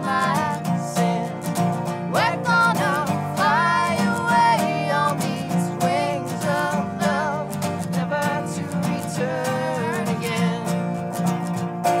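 Acoustic folk band playing: two acoustic guitars and a resonator guitar strummed steadily, under voices singing with vibrato.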